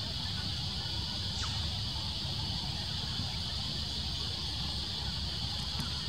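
Steady high-pitched drone of cicadas chorusing, with a low rumble underneath.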